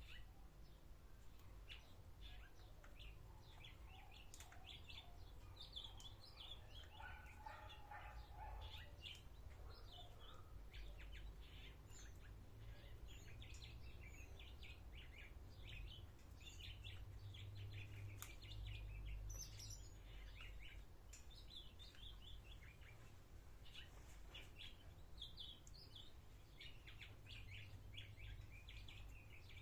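Small birds chirping faintly in many short, quick notes, with a steady low rumble underneath.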